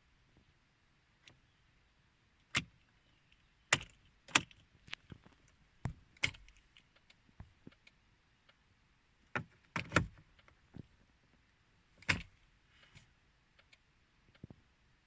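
Irregular sharp clicks and knocks with a jangle of keys: a key being put into and turned in the ignition lock of a 2007 Mercedes C 220 CDI, with no starter cranking and no engine running, the car's no-start fault.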